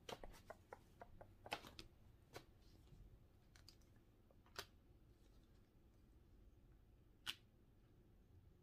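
Near silence with faint clicks and small taps, tarot cards being handled and laid down on a table: a quick scatter of them in the first couple of seconds, then two single clicks further on.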